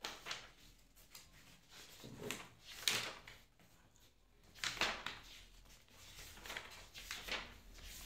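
Pages of a textbook being leafed through: several brief, irregular rustles with light knocks of handling, the loudest about three seconds in.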